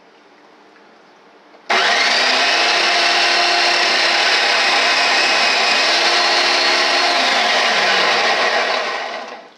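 A 45-year-old General Electric food processor's motor switches on about two seconds in and runs steadily as a potato is pushed down the feed tube onto the slicing blade. Near the end it winds down, falling in pitch, and stops.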